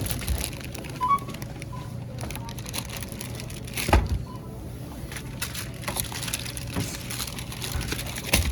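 Groceries being handled and bagged: scattered knocks and rustling clatter, with a louder thump about four seconds in, over a steady low hum.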